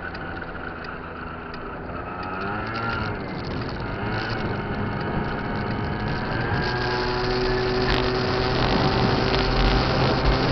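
Kymco Cobra (Top Boy) two-stroke scooter engine pulling away and accelerating, its pitch rising from about two seconds in and its sound getting louder. Wind rumbles on the microphone more and more as speed builds toward the end.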